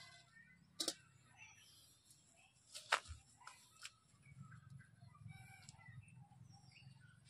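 Faint birds chirping, with two sharp clicks about one and three seconds in, the second louder.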